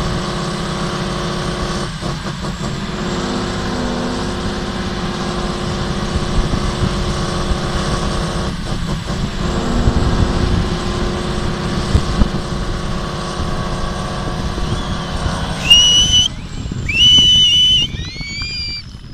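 Heavy off-road trial truck's diesel engine working under load as it crawls up a steep dirt bank, its note dipping briefly twice. Near the end, several loud, high-pitched whistles ring out over the engine, the last ones gliding down in pitch.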